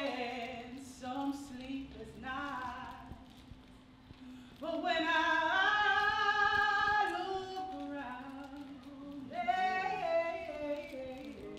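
A singing voice in drawn-out phrases, with one long held note in the middle, over a faint steady low tone.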